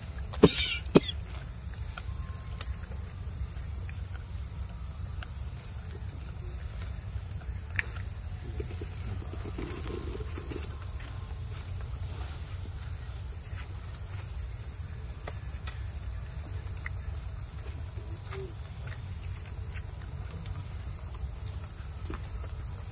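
A steady high drone of insects (crickets or cicadas) from the surrounding forest undergrowth. A few sharp clicks stand out, two loud ones within the first second and another about eight seconds in.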